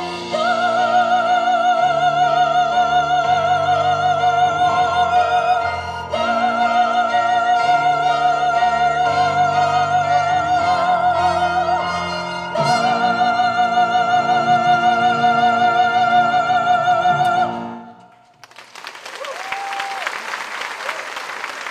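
A soprano holds three long, high notes with vibrato over orchestral accompaniment, each a few seconds long, as the song ends about 18 seconds in. Audience applause follows near the end.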